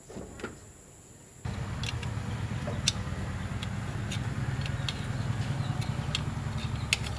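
A machine with a motor starts abruptly about a second and a half in and runs with a steady low hum, with scattered sharp clicks over it.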